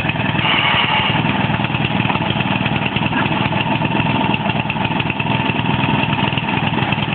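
Walk-behind lawn mower's small petrol engine running steadily at an even speed. It will not shut off.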